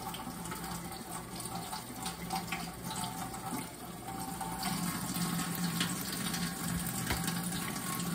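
Kitchen faucet running as raw pork chops are rinsed under the stream by hand.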